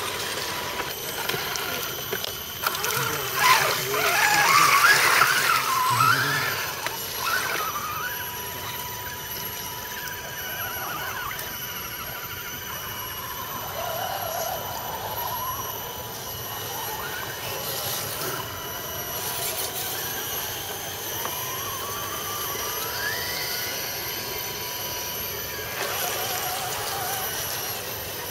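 Electric motors of radio-controlled scale crawler trucks whining as they drive through mud and water, the whine rising and falling in pitch, loudest about four to six seconds in.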